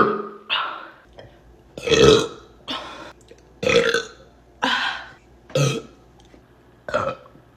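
A woman burping again and again: about eight short burps in quick succession, roughly one a second, the strongest about two seconds in.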